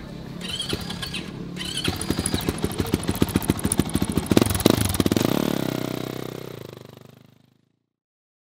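Dirt bike engine running with a quick, even beat of about ten pulses a second, then fading out near the end.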